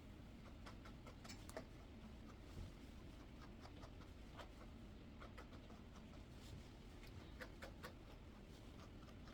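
Near silence, with faint, scattered snips of curved grooming scissors trimming a puppy's head hair.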